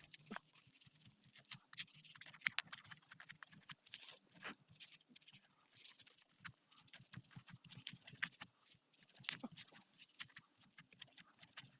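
Faint, irregular light knocks and clicks of chilies being worked by hand into sambal, several a second with short gaps.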